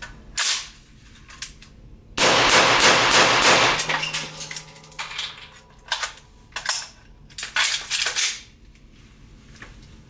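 Shots from a 16-inch 5.56 rifle fitted with a Knight's Armament QDC/MCQ-PRT suppressor, firing M193. There is one shot about half a second in, a fast string of shots around two seconds in, then several more spaced shots. It is a very short suppressor and not quiet by any means.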